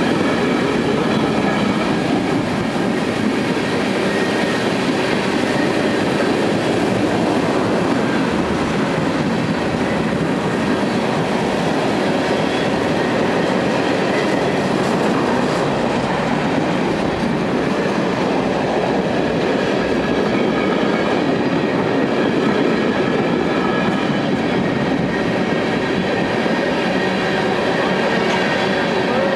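Freight train of tank cars rolling past at close range: a steady, loud rumble and clatter of steel wheels on the rails, with faint thin high tones over it.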